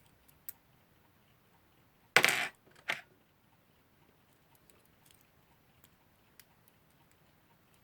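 Faint small clicks and taps of tiny clock parts being handled while an alarm clock movement is reassembled, with a short, louder rush of noise about two seconds in and a smaller one just before three seconds.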